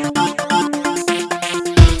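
Electronic dance music with a fast, steady beat and a repeating synth pattern; a deep bass hit lands near the end.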